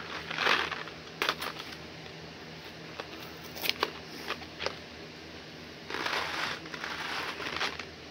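Packaging being handled: crinkling and rustling with several sharp clicks and taps, and a longer stretch of crinkling about six seconds in.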